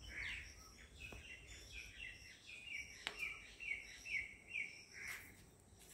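A bird calling in a quick series of short, falling chirps, about three a second, faint and at a distance. Louder calls come at the start and near the end, and a single sharp click falls about halfway through.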